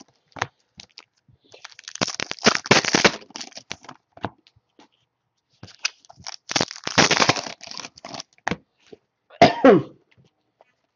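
Foil trading-card packs being torn open and their wrappers crinkled in short crackling bursts, with the snap of cards being handled. A short cough comes near the end.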